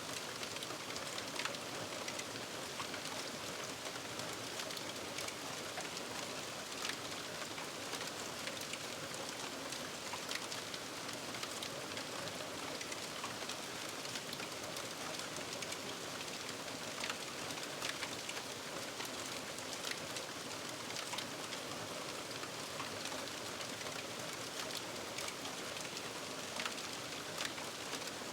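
Fire-aftermath ambience: a steady hiss with many small, scattered crackles and pops, as of burnt debris still smouldering.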